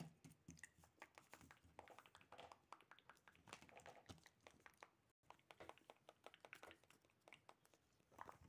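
Faint scattered taps and crinkles of fingers handling paper cut-out figures covered in clear sticky tape.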